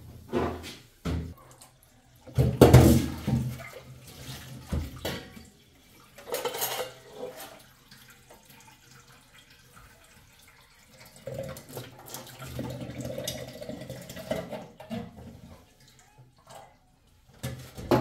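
Water running from a tap into a stainless-steel sink in several separate stretches, with glasses and dishes knocking as they are washed.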